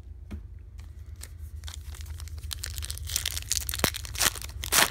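Foil trading-card pack wrapper crinkling and being torn open. The crackle is sparse at first, builds through the second half and is loudest near the end.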